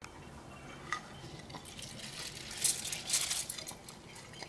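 Soaked raw rice being tipped into a stainless steel mixer-grinder jar: a few light clinks, then a short rush of wet grains sliding onto the steel about two and a half to three and a half seconds in.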